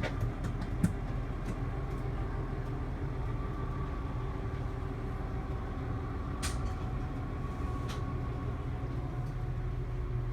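Motorhome bedroom slide-out extending under power: a steady low mechanical hum with a few sharp clicks.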